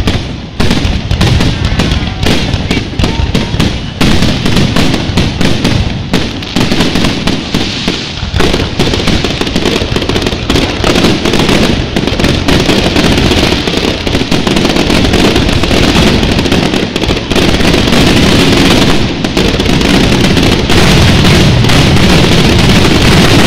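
Fireworks finale: aerial shells bursting in rapid, overlapping succession, a dense barrage of booms that grows thicker until it is almost continuous near the end.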